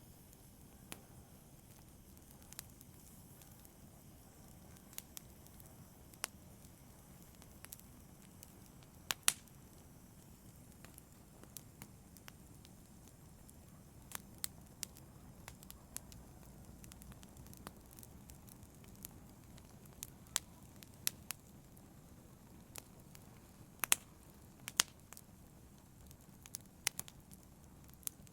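Wood fire crackling in a fireplace: a low steady burn with irregular sharp pops and snaps, the loudest a few seconds in and twice close together near the end.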